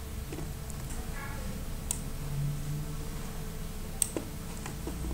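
Two sharp clicks at the computer, about two seconds and four seconds in, over a steady low hum, with a faint short hum of a voice between them.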